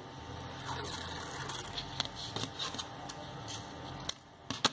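Paper floral tape rustling as a strip is pulled off its roll, then sharp clicks of scissors cutting it near the end.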